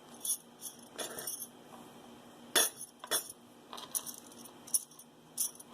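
Metal costume jewelry clinking and jingling as pieces are picked up and handled: a run of light, sharp clinks, the loudest about two and a half seconds in.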